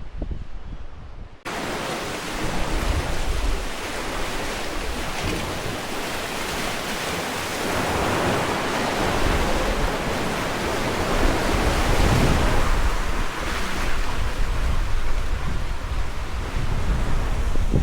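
Waves breaking on a beach mixed with wind buffeting the microphone, a steady rushing noise with heavy low rumble. About a second and a half in it changes abruptly from a muffled low rumble to a full, bright rush.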